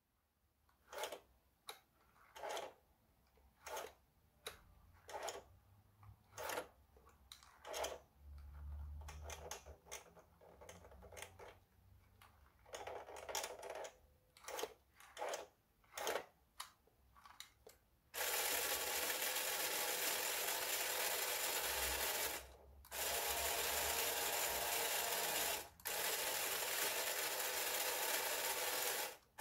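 Battery-powered toy forklift's small electric motor and plastic gearing running: short whirring bursts about once a second, then, about two-thirds in, a steady continuous whir that stops briefly twice.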